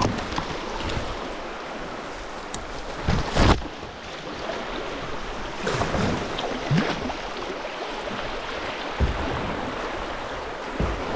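Shallow river rapids rushing steadily around a kayak, with a few dull thumps, the loudest about three seconds in.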